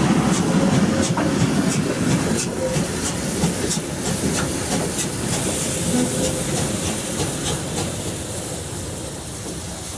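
Class 52.80 steam locomotive moving slowly on the track, steam hissing from its open cylinder drain cocks, with irregular clicks and clanks from the wheels and running gear. The sound fades as the engine draws away.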